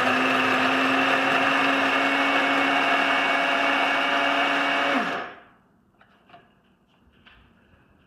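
Master Chef Elite blade coffee grinder running steadily, its stainless steel blade grinding coffee beans. About five seconds in the button is released and the motor winds down, falling in pitch, leaving only faint small clicks.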